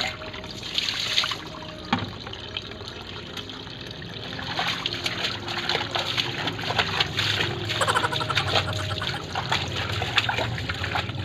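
Water poured from a plastic bucket into a washbasin, then bare feet treading laundry in a plastic basin of soapy water, sloshing and splashing, busier from about halfway through.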